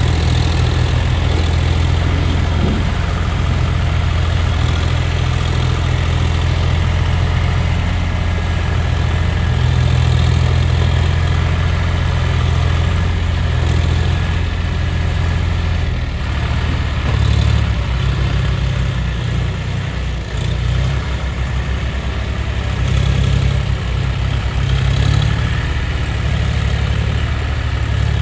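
John Deere 5039's three-cylinder diesel engine pulling a heavily loaded soil trolley at low speed, a steady low drone. After about sixteen seconds its note turns uneven and wavers up and down.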